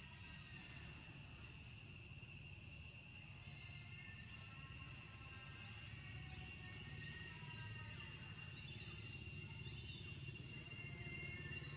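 A steady, high-pitched drone of insects in the forest, with faint music swelling in over the second half.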